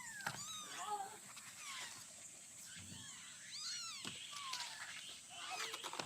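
Cats mewing: a run of short, high-pitched mews, some overlapping, falling in pitch.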